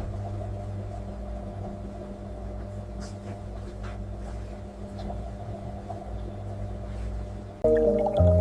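A steady low hum holding a few fixed pitches. Near the end, louder music with changing notes comes in.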